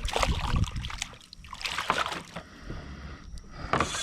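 Irregular water splashing with scattered light knocks and rustling, in uneven bursts.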